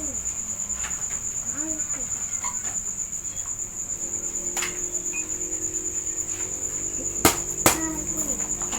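A cricket trilling steadily at a high pitch, with two sharp clicks about half a second apart near the end.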